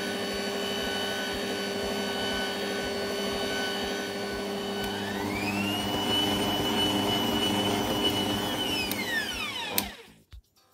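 Electric stand mixer motor running with its wire whisk, creaming butter and icing sugar. About five seconds in it is turned up, and the whine rises to a higher pitch and holds. Near the end it spins down and stops with a click.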